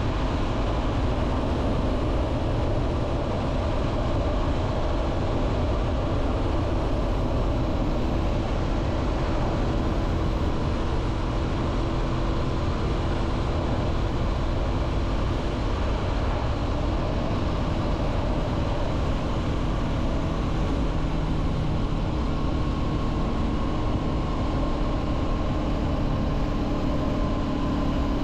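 Wind rushing hard over the microphone of a 2023 Honda CB500F rider at steady cruising speed, with the bike's parallel-twin engine running steadily underneath.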